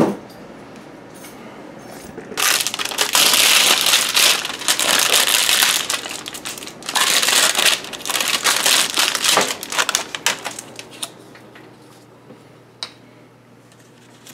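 Plastic shrink wrap being torn and crumpled off a screen frame kit. The crinkling comes in two long, loud spells starting about two seconds in, then tails off into a few softer crackles.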